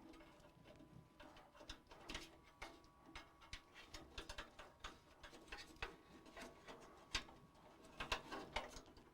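Faint, irregular clicks and light rattles of cables and parts being handled inside a desktop PC case.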